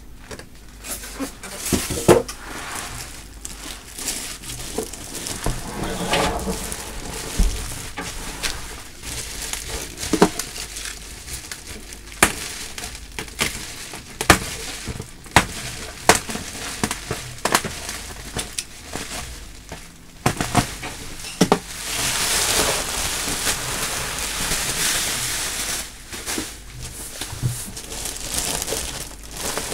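Packaging being handled while unboxing a computer case: a clear plastic bag crinkling and rustling, with scattered knocks and taps as the foam end caps and the case are moved. A longer stretch of steady plastic crinkling comes about three-quarters of the way through.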